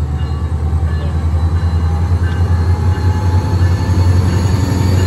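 SunRail MP32PH-Q diesel-electric locomotive running with a steady low rumble as it pulls past close by, getting louder as the cab comes alongside.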